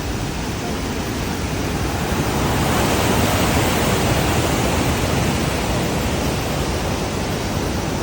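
Rhine Falls waterfall: a loud, steady rush of falling water that swells slightly in the middle.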